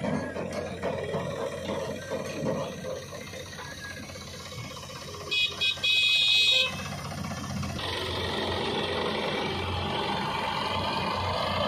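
Tractor diesel engines running. About five seconds in a horn sounds, two short honks and then a longer blast of a second or so. Near the end an engine grows louder as a tractor comes close.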